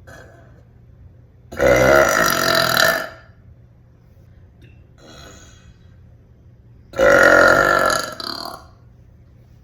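A woman burping loudly: two long belches, each lasting about a second and a half, about five seconds apart.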